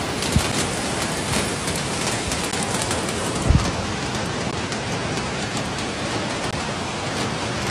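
Heavy rain pouring steadily onto a flooded street, an even hiss, with two brief low thumps, one near the start and one about three and a half seconds in.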